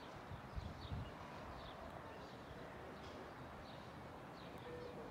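Small birds chirping faintly, a steady run of short, high notes that each fall in pitch, about one or two a second.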